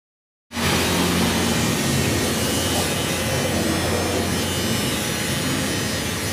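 Electric hair clippers buzzing steadily as they cut through long hair to shave a head, starting suddenly about half a second in. The clip is played back sped up 1.5 times.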